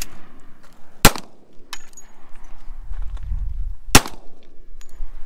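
Three single gunshots, each a sharp crack with a short tail: one right at the start, one about a second in, and one near the end.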